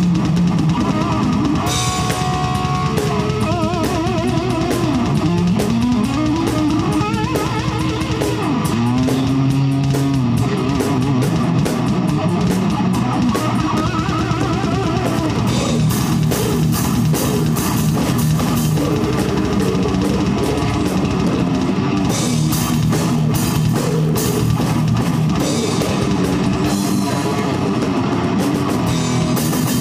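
Black metal band playing live: distorted electric guitars and a drum kit. Bending, sliding guitar lines stand out in the first part, and the drums' cymbal hits grow denser and louder about halfway through.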